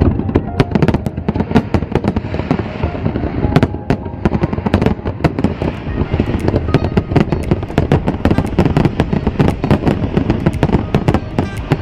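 Fireworks display: a dense, unbroken barrage of aerial shells bursting, many bangs and crackles every second.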